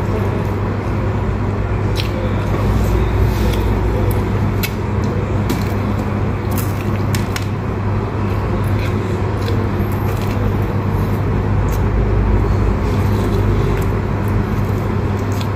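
A person chewing bread, with scattered soft mouth clicks, over a steady loud low background hum.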